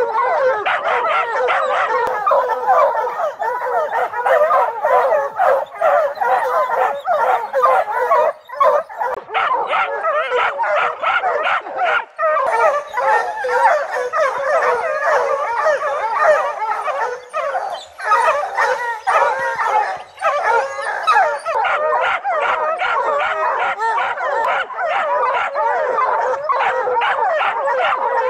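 A pack of bear hounds barking and howling together without letup, many dogs at once: hounds bayed up at a tree with a bear treed.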